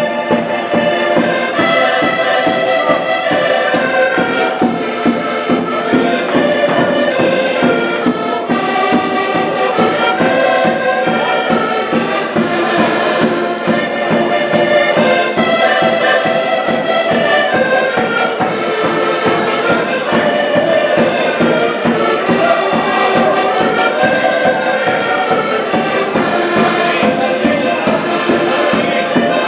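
Several diatonic button accordions playing a Portuguese folk dance tune together, with a small plucked string instrument strumming along to a steady beat.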